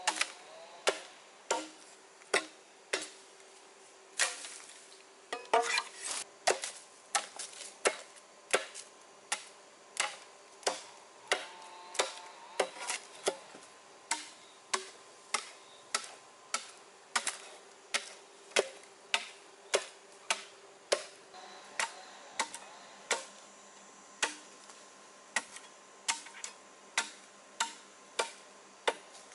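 A hand tool striking over and over at an even pace, about three sharp strikes every two seconds.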